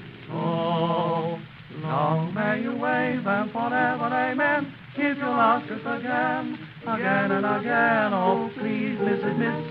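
Male singing with a wavering vibrato, phrases broken by short breaths, from a 1938 78 rpm record with its dull, narrow old-record sound.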